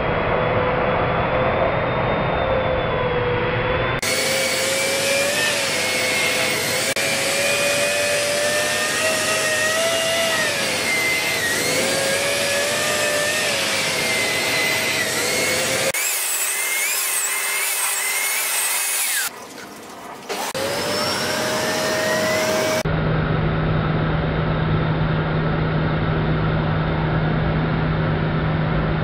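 Dyson Cinetic Big Ball Animal Pro vacuum cleaner running over a shaggy rug, a steady motor whine that wavers slightly in pitch. Its tone changes abruptly a few times, and it drops out briefly about two-thirds of the way through.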